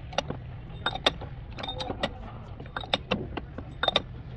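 Irregular metallic clinks and taps of hand tools working on metal car parts, some ringing briefly, over a low steady hum.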